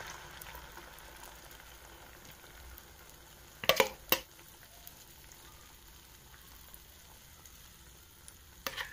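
Egg, potato and onion omelette mixture sizzling gently in a nonstick frying pan, fading over the first second to a faint steady frying. Two sharp knocks about four seconds in, half a second apart.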